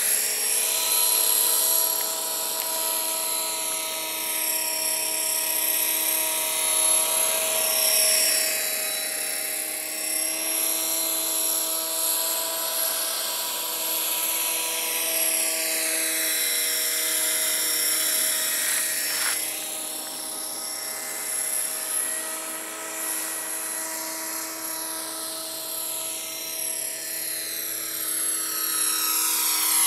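Electric RC model helicopter (an Align T-Rex 500 under a scale Bell 212 body) flying: a steady high motor-and-gear whine, its tone sweeping as the model passes back and forth.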